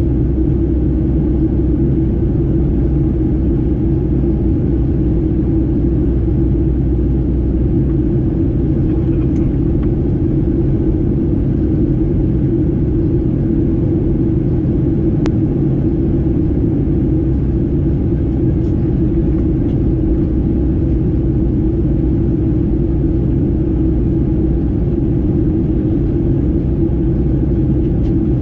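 Steady low cabin rumble of a Boeing 737-800 with its CFM56-7B engines running, heard from a window seat inside the cabin.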